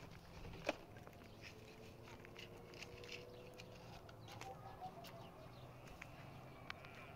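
Faint rural outdoor ambience: a sharp tap about a second in, then scattered small clicks and a few faint bird chirps.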